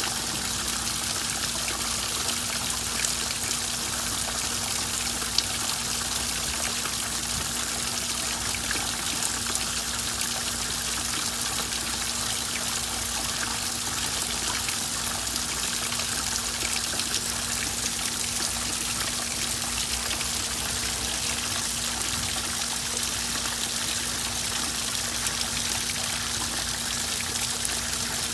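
Garden waterfall: water trickling and splashing in thin streams down a mossy stacked-stone wall into a pond, steady and unbroken, with a faint steady low hum underneath.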